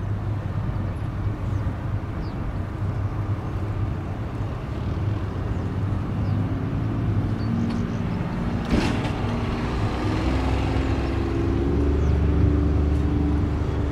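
Boeing P-8 Poseidon's twin turbofan jet engines heard during a display pass: a steady jet rumble, joined about halfway by a droning hum that slowly shifts in pitch, growing louder near the end.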